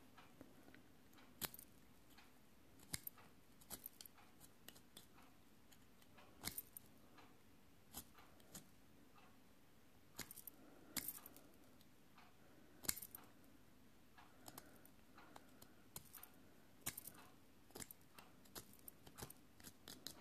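Faint, irregular clicks and light scrapes of a pen-style craft knife trimming dried decoupage paper from the edges of a glass chandelier crystal.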